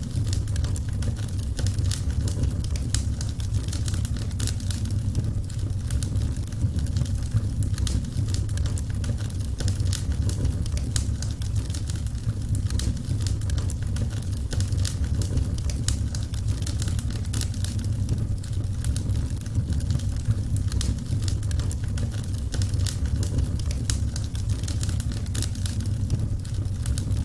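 Wood fire burning, with a steady low rumble and frequent small sharp crackles and pops scattered irregularly throughout.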